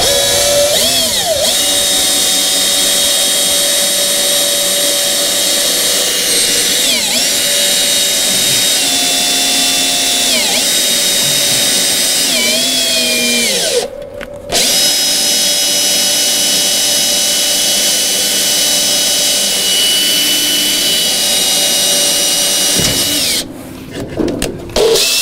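Cordless drill boring through a metal catalytic-converter shield into the car's underbody: a steady motor whine that sags in pitch several times as the bit loads up. It stops briefly about 14 seconds in, runs again until near the end, then gives a few short bursts.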